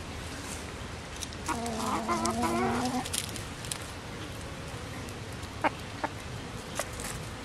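A domestic chicken calling once: a wavering, pitched call lasting about a second and a half, starting about a second and a half in. A few faint clicks follow near the end.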